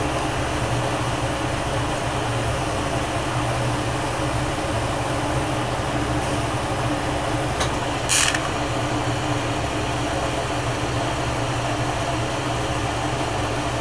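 Bench-mounted glassblowing torch burning with a steady rushing hiss, with a short, sharper hiss about eight seconds in.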